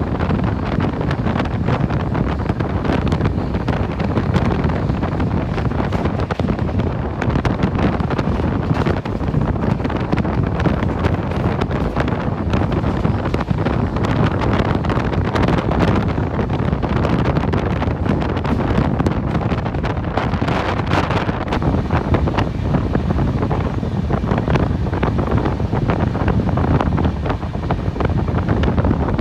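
Moving passenger train heard from on board: a steady rush of running noise with fine rattling, and wind buffeting the microphone.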